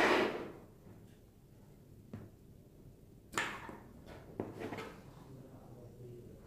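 Handling noises: a brief rustle at the start, a sharp click about two seconds in, then a short run of light knocks and rustles a little past the middle.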